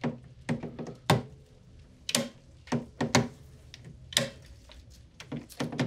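Sharp clicks from a torque screwdriver turning the steel ring screws of a scope mount as they are tightened in small increments, about ten clicks at uneven spacing.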